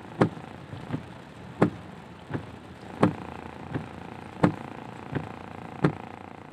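Car windscreen wipers knocking at each end of their sweep, a sharper knock about every second and a half with a softer one halfway between, over the steady hiss of rain and traffic heard from inside the cabin.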